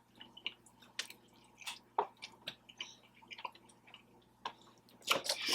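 Wet chewing and lip smacks of a person eating birria tacos: scattered soft clicks and squishes, with a louder burst about five seconds in.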